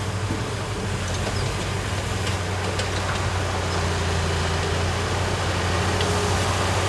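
Heavy diesel earthmoving engine running steadily with a low, even drone, with a few faint clicks over it.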